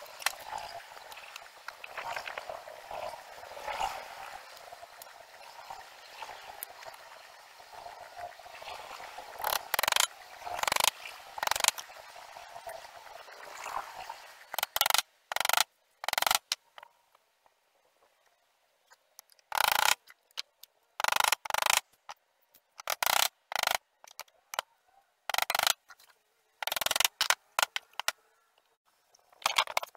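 Rough scraping and rubbing on old wood boards for about the first half. Then a hammer strikes the wood in sharp knocks, mostly two at a time, with pauses of a second or more between them.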